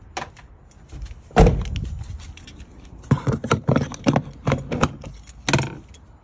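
A heavy thump about a second and a half in, then a quick run of plastic clicks and knocks as a blue mains hook-up plug is worked into the electric hook-up inlet on a motorhome's side.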